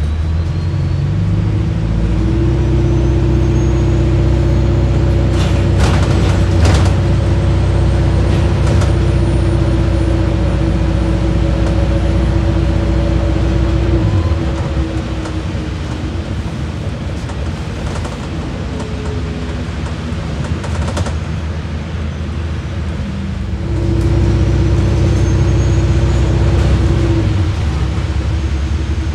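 Hybrid bus's diesel engine working hard under full throttle from about two seconds in, heard from inside the passenger cabin, with a faint high whine rising in pitch. It eases off for about nine seconds past the middle, then works hard again near the end, with a few knocks and rattles from the bus body along the way.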